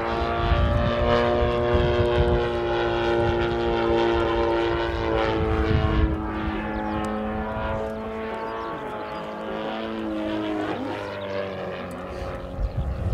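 Saito FG-41TS, a 41 cc four-stroke flat-twin gasoline engine, running in a flying radio-controlled model airplane: a steady propeller drone that drops in pitch about halfway, then rises again near the end while growing fainter.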